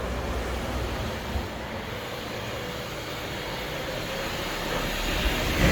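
Steady low rumble of a passing vehicle, growing louder near the end, with one short click about a second and a half in.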